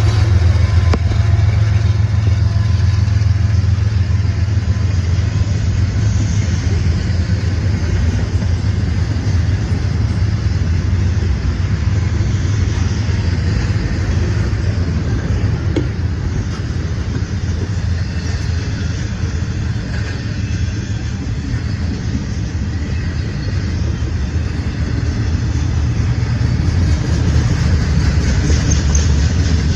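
Norfolk Southern freight train passing close by: a loud, steady low rumble with a wide haze of rolling noise, easing slightly midway and building again toward the end.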